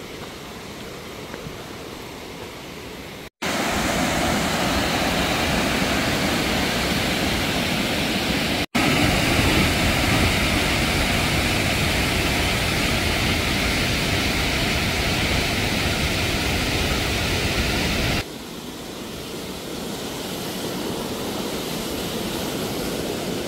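Steady rush of fast-flowing river water, heard across several cut-together clips. It is moderate at first, loud from about three seconds in, and drops back near the end.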